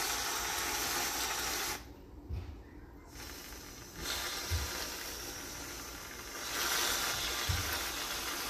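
Aerosol can of whipped cream hissing as it sprays cream onto two cups. The spraying comes in long spurts, with a pause about two seconds in and a louder spurt near the end.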